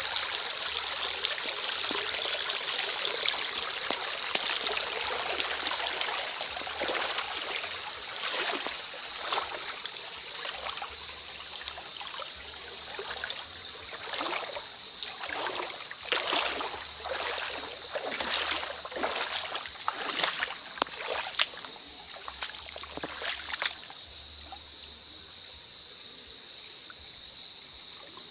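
A shallow forest creek trickling over stones, with a run of sloshing splashes, roughly one a second, from footsteps wading through the water in the middle stretch. A steady high-pitched tone sits over the water throughout.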